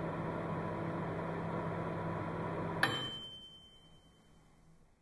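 Kenwood microwave oven running with a steady hum, then a sharp ding about three seconds in as the cycle ends, the bell ringing on while the hum winds down.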